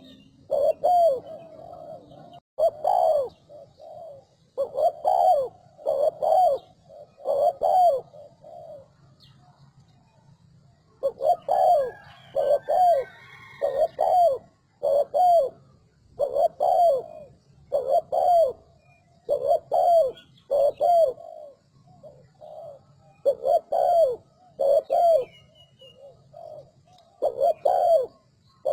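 Spotted dove cooing in quick, repeated phrases of short coos, the fast style of cooing. A pause of about two seconds falls near the middle.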